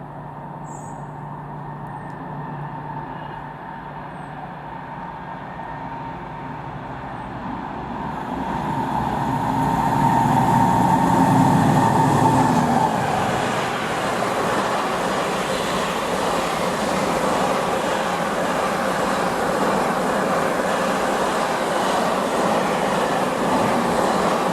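Freight train passing at speed. The locomotive approaches and grows louder, passes about halfway through with its loudest hum and whine, and the wagons then rumble by in a steady, even roar of wheels on rail.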